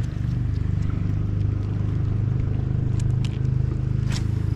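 A boat engine running steadily at low revs, with a rapid even beat. A few short sharp clicks come about three and four seconds in.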